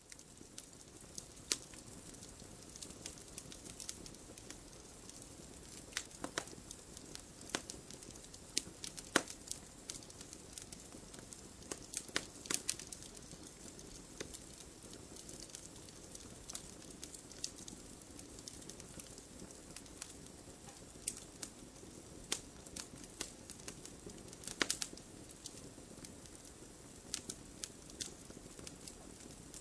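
Campfire crackling: irregular sharp pops and snaps over a steady soft hiss of the flames. A few louder pops come in clusters, about twelve seconds in and again about twenty-five seconds in.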